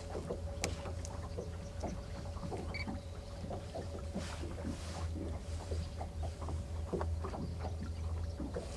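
Steady low hum aboard a boat, with scattered small clicks and rubbing from gloved hands handling roe and a plastic tub while baiting a hook. A brief hiss comes about four seconds in.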